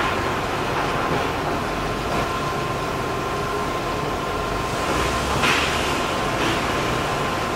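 Narrow-gauge JZ 25-30 class 0-6-0 steam locomotive moving at walking pace: a steady mechanical running noise and rumble with a thin steady hum, and a louder hiss of steam about five and a half seconds in.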